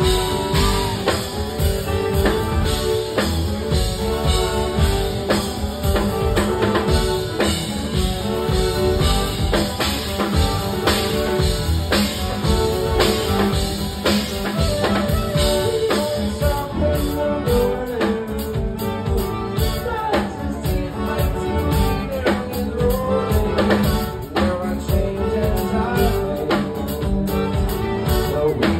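Live rock band performing: drum kit, violin and guitars playing together in a full, continuous passage.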